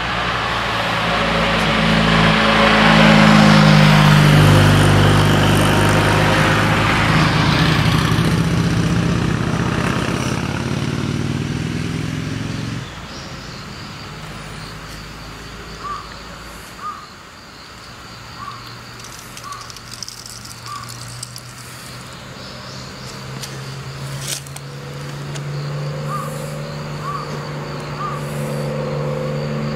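A classic sports car's engine passing close, loudest a few seconds in, then cut off abruptly about thirteen seconds in. A quieter roadside stretch follows with short bird chirps and a single click. Near the end another car's engine builds as it approaches.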